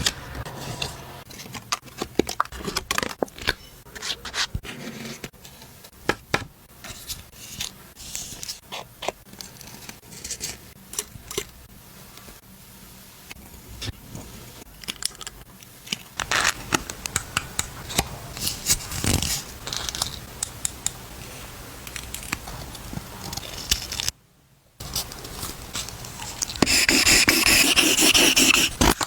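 Paper and card being handled for a paper-craft model: cutting, scraping and rustling in many small irregular clicks and scrapes, with a louder, denser rasping stretch near the end.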